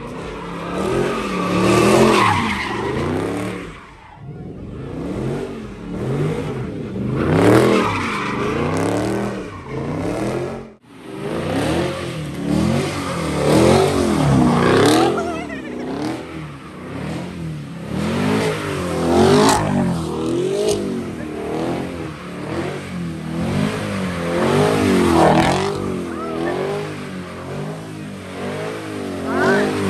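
Cars doing burnouts and donuts: engines revving up and down over and over, with tyres squealing and skidding on the pavement. The sound breaks off abruptly about eleven seconds in, and another car's revving takes over.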